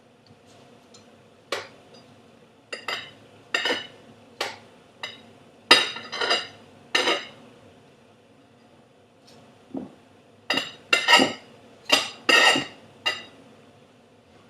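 A table knife clinking and tapping against hard kitchenware, a run of irregular sharp clinks with a short ring. They come in two bunches with a pause of a few seconds between them.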